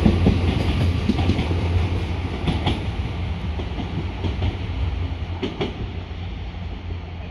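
GWR Class 800 bi-mode intercity train moving away on diesel power, its engines humming low. Its wheels click over rail joints in pairs about two and a half seconds and five and a half seconds in, and the sound fades steadily as it recedes.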